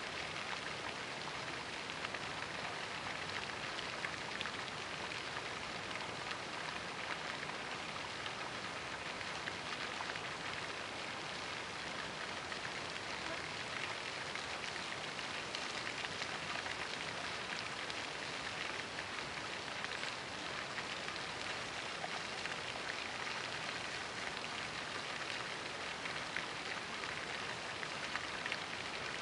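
Pond fountain spraying, its water falling back onto the pond surface in a steady splashing patter.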